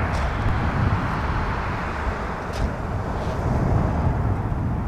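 Sea surf breaking and washing over a shingle beach: a steady rushing noise with a strong low rumble.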